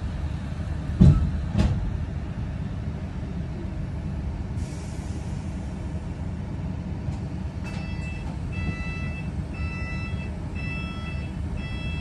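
Steady low rumble of a double-decker bus heard from the upper deck while it drives, with two sharp knocks about a second in and a short hiss near the middle. In the last four seconds an electronic beep repeats in short, even pulses.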